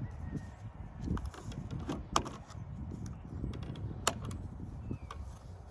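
A few sharp clicks and taps of hard plastic as the air filter cover and filter of a V-Modest 2511T chainsaw, a clone of the Echo 2511T, are taken off by hand. The engine is off, and a low uneven rumble sits underneath.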